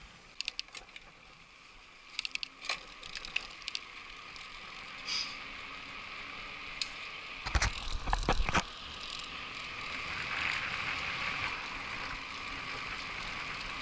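Trek Superfly mountain bike rolling on asphalt: scattered light clicks and rattles from the bike, a cluster of heavy thumps about eight seconds in, then a steady hiss of tyres and wind that grows toward the end.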